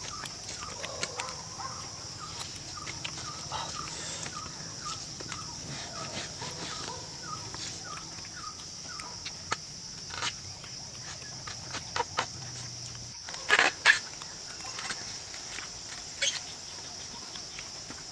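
Forest ambience: a steady high-pitched drone, with a bird calling in a quick series of short repeated chirps through the first half. Scattered clicks and knocks, the loudest a pair of thumps about fourteen seconds in.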